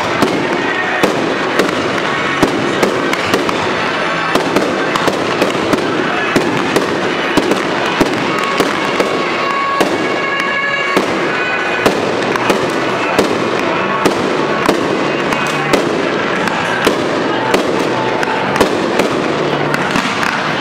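A fireworks display with aerial shells bursting in quick, irregular succession, two or three sharp bangs a second, over a continuous din.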